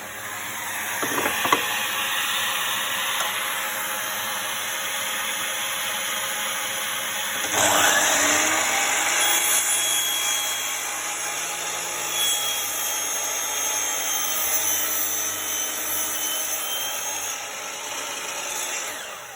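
DeWalt DW718 12-inch sliding compound mitre saw spinning up with a rising whine about seven seconds in and running through a cut in wood, then stopping near the end, over the steady rush of a vacuum connected to its dust port. A couple of sharp clicks come about a second and a half in.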